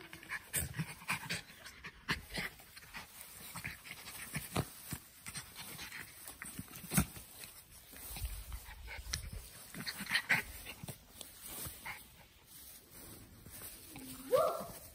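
Two Brazilian Terrier puppies play-fighting: panting and snuffling, with irregular soft thumps and clicks as they scuffle, and a brief rising cry near the end.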